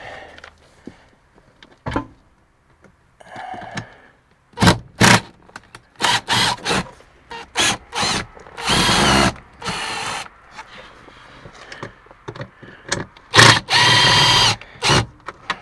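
Cordless drill-driver on screws in an overhead panel, run in a string of short bursts from about four seconds in. Two longer steady whines, each around a second and a half, come near the middle and near the end.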